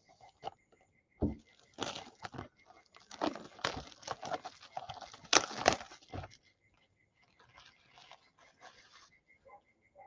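Clear plastic shrink wrap being cut and torn off a cardboard trading-card hobby box: loud crinkling and tearing in bursts over the first six seconds, then fainter crinkling.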